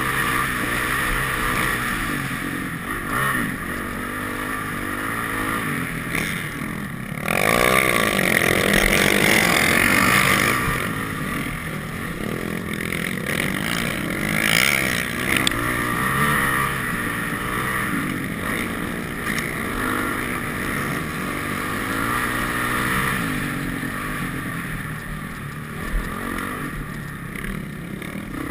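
Off-road dirt bike engine at racing speed, heard from the rider's helmet, running hard and changing pitch as the throttle is worked. About seven seconds in it gets louder and rises in pitch, holding high for about three seconds before easing back.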